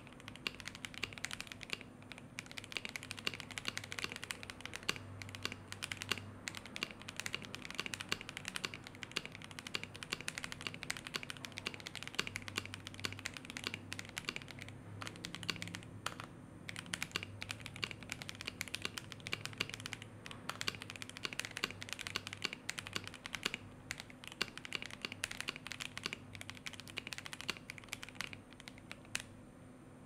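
Mechanical keyboard with Zuoce Pink Purple White linear switches (long-pole stems, lubed with Krytox 205 Grade 0 over the factory lube) being typed on continuously: quick, dense key clacks with a few brief pauses, stopping about a second before the end.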